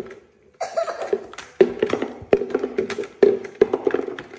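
Hollow taps on a plastic bucket, struck by hand in quick, irregular strokes, several a second.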